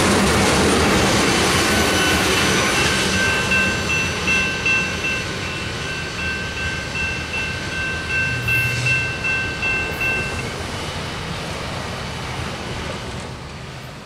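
Tank cars of a freight train rolling past and moving away, steel wheels clicking over rail joints about three times a second. A steady high ringing tone runs over the noise and stops about ten seconds in. The train noise fades gradually.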